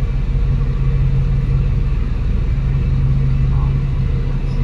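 Cummins L9 straight-six diesel of an Alexander Dennis Enviro500 MMC double-decker bus running steadily on the move, a loud, even low drone heard from the rear seats near the engine.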